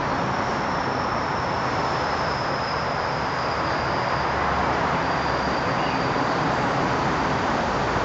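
Steady, even rushing background noise, with a faint high whine through the first half or so.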